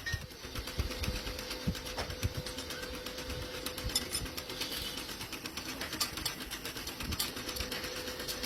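Factory machinery running: a steady hum with irregular clicks, clatter and low knocks.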